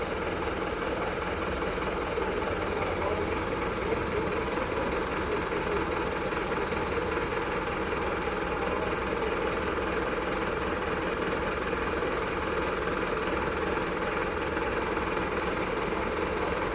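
Truck diesel engine running steadily at idle, an even rumble that does not change.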